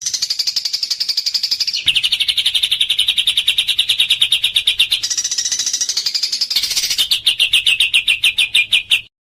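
Songbird singing fast trills of rapidly repeated sharp notes, the rapid-fire 'tembakan' bursts used in masteran recordings. The trill shifts between a higher and a lower pitch a few times and cuts off abruptly near the end.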